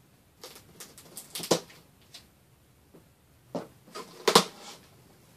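Cardboard shipping box being handled and its flaps pulled open: scattered rustles and scrapes, a sharp cardboard knock about a second and a half in, and louder sharp knocks and scrapes around four seconds in.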